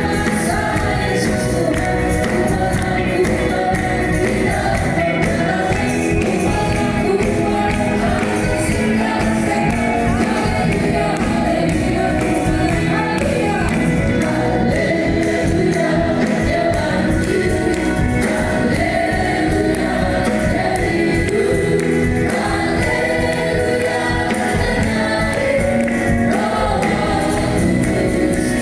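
A choir singing with keyboard accompaniment, steady and continuous.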